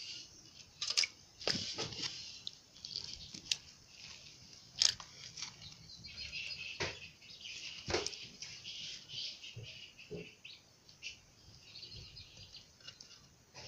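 Water splashing and sloshing in a rusty metal basin as a hand grabs at small fish, with irregular sharp splashes and knocks against the basin.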